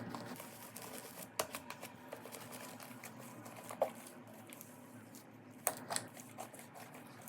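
Slime being worked by hand: faint, scattered small clicks and taps, a few sharper ones standing out.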